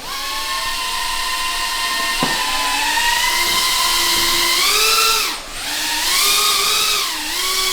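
FPV drone's electric motors and propellers whining. The pitch rises with throttle about three seconds in, then swings up and down as it is flown, dipping briefly about five seconds in.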